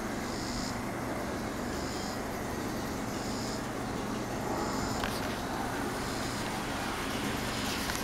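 Kenmore Automatic box fan running steadily: an even rush of moving air over a low motor hum. A faint high chirp repeats about every second and a half through the first half.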